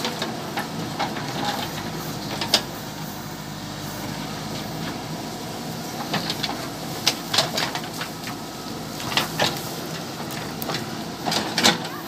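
JCB 3DX backhoe loader's diesel engine running steadily under digging load, with sharp metallic knocks and scrapes as the bucket bites into stony ground: one about two and a half seconds in, a run of them in the second half, and a few more near the end.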